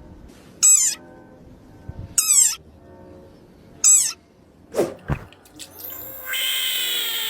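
Frog calls: three short, high-pitched squeaks about a second and a half apart, then two quick low sweeps, and about six seconds in a louder, drawn-out cry that slowly falls in pitch.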